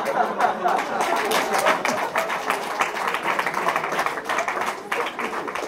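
Audience applauding in a hall, a dense run of hand claps with laughter and chatter mixed in, in reaction to a joke.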